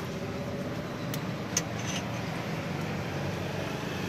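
Steady low rumble of road traffic, with a few light clicks of utensils against bowls about a second and a half in.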